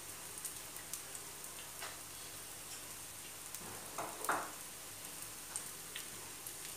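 Potato-and-egg patties shallow-frying in oil in a flat pan: a steady sizzle with a few sharper crackles, the loudest about four seconds in.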